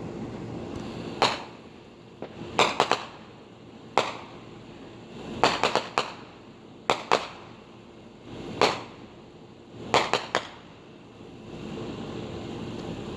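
Fireworks going off at a distance: about a dozen sharp bangs and pops in ten seconds, some single and some in quick runs of two or three.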